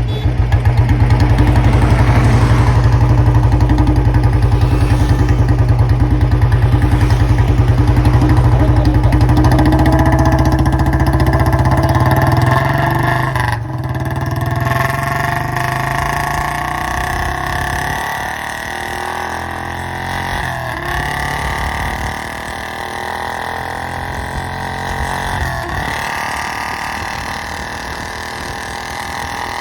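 Royal Enfield Bullet Classic 350's single-cylinder engine running loudly through a narrow-mouth Long Punjab aftermarket silencer, a heavy, evenly pulsing exhaust note. About halfway through the sound changes abruptly and goes on quieter, with less of the deep thump.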